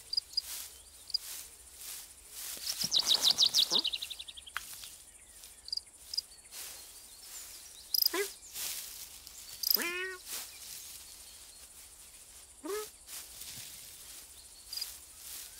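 Countryside ambience with birds chirping. A fast rippling trill comes about three seconds in and is the loudest sound; three short swooping calls follow about two seconds apart later on.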